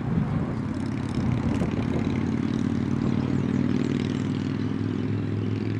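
An engine running steadily, a low hum whose pitch holds level.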